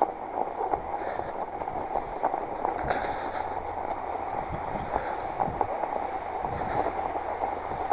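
Northrock XC00 fat-tire bike rolling through fresh snow: a steady crunching rumble from the wide tyres, with many small clicks and rattles from the bike.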